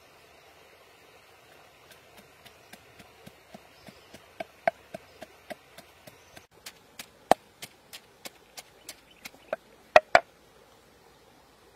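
Wooden pestle pounding spices in a mortar: regular knocks about three a second, starting about two seconds in and ending with two louder knocks near the end.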